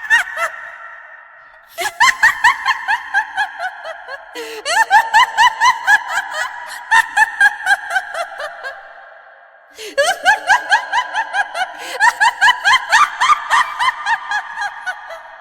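A woman's evil cackling laugh: several runs of rapid, high-pitched 'ha-ha-ha' bursts, each run trailing off in a long echoing decay.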